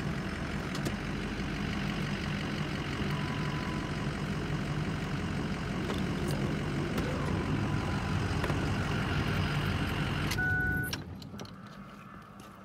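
Pickup truck engine running with road and tyre noise as the truck moves slowly along a rough dirt track. About ten seconds in a short electronic beep sounds, the engine noise cuts out, and only faint clicks and handling noises remain.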